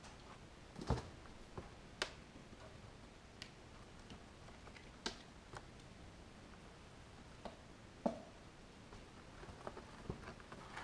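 Kittens playing on a corrugated cardboard cat scratcher: about ten light, sharp taps and scuffs of paws and claws, spaced irregularly and coming more often near the end.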